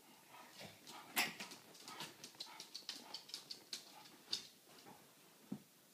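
Shar-pei puppies' claws clicking and scrabbling on a laminate floor as they scamper about: a quick run of sharp ticks, several a second, with one louder knock about a second in.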